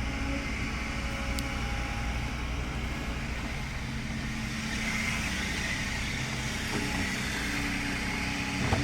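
Heavy diesel engine running steadily, with a brief click early on and a few knocks right at the end.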